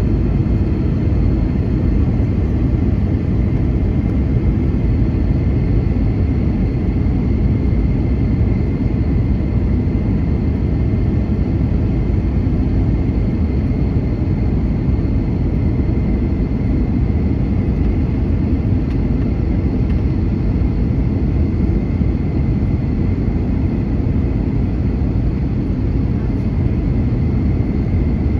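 Airbus A321 cabin noise heard from a passenger seat during the descent: a steady drone of engines and airflow, strongest in the low end, with a faint high steady whine over it.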